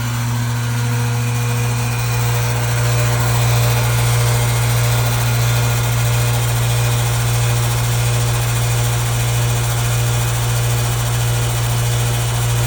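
A 20-year-old builder-grade central air conditioner condenser running, extremely noisy: a loud, steady drone of compressor hum under the rushing of the condenser fan.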